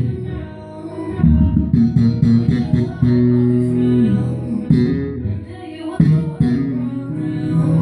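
Electric bass guitar played by hand along to a recorded rap song: a plucked bass line with a few long held low notes.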